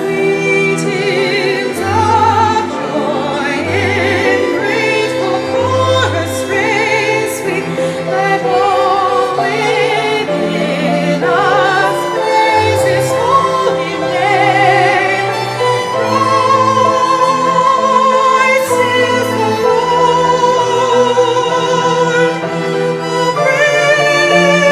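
Classical-style music with a singer holding vibrato notes over an accompaniment.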